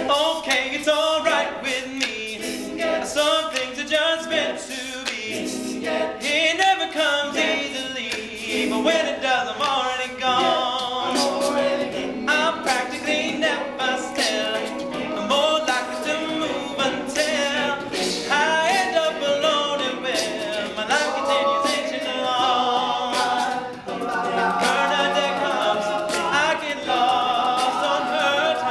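An all-male a cappella group singing, several voices in close harmony with no instruments.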